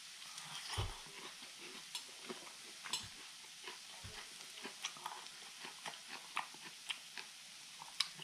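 Quiet eating sounds: grilled pork intestines (makchang) being chewed, with scattered small clicks of metal chopsticks against the grill pan over a faint sizzle.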